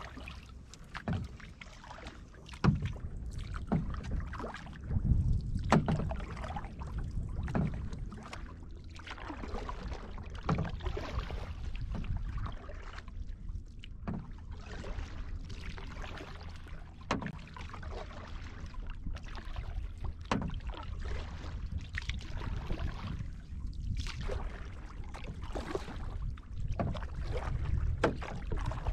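Canoe paddle strokes in calm lake water: irregular dips and splashes every second or two, with drips and water lapping at the hull, over a steady low rumble.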